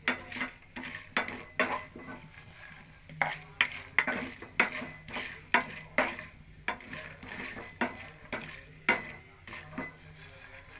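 Wooden spatula stirring peanuts as they roast in hot oil in a nonstick frying pan: repeated scraping and clattering strokes, with a couple of short pauses, over a light sizzle.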